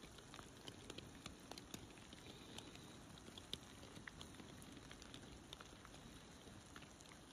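Faint light rain: a soft steady hiss with scattered single drops ticking close by.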